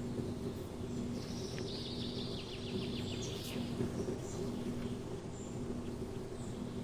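A bird singing: a high phrase that breaks into a fast rattling trill, running from about one to three and a half seconds in, followed by a few short chirps. Under it runs a steady low hum.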